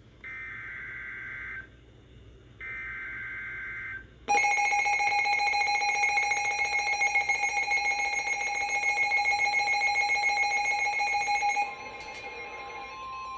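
Emergency Alert System tones: two short bursts of SAME header data, then the loud two-tone EAS attention signal with a rapid beating pulse for about seven seconds. It gives way near the end to a softer, steady single tone.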